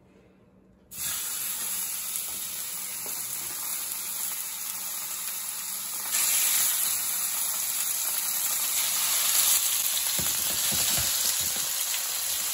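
Raw seasoned chicken breasts sizzling in hot oil in a grill pan: the sizzle starts suddenly about a second in as the first breast goes in, and gets louder about six seconds in as another breast is laid in.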